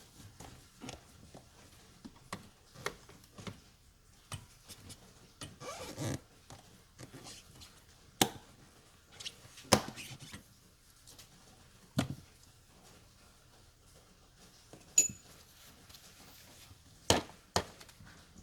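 Hand tools and parts being handled during car battery work: irregular clicks and knocks, a few of them sharp, one with a brief metallic ring about 15 seconds in.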